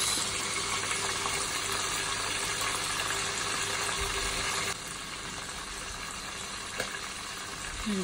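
Small stuffed doves frying in hot oil in a pan, a steady sizzle that drops suddenly to a quieter level a little past halfway.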